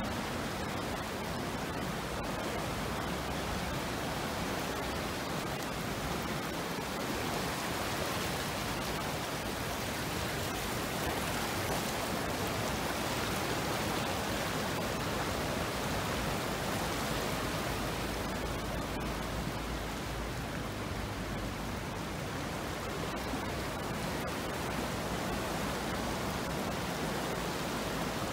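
Steady rushing of the flooded Kyll river, fast turbid floodwater churning past submerged bushes and buildings in a continuous even roar of water.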